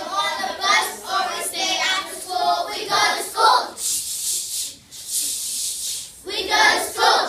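Group of children singing in unison. About four seconds in, the singing gives way to a run of hissed "ch ch ch" sounds chanted by the children, and the singing starts again near the end.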